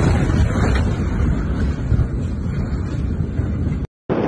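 Heavy low rumble and rushing wind buffeting a phone microphone as the Beirut port explosion's blast wave and dust cloud sweep over. It cuts off abruptly near the end and gives way to a different steady rushing noise.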